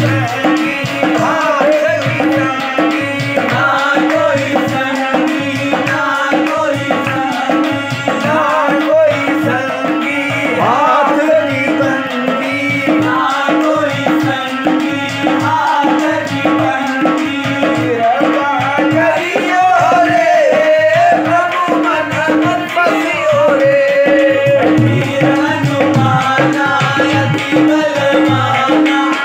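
Tabla played in a steady rhythm, with deep bass-drum strokes, under a man singing a devotional bhajan over a steady harmonium drone.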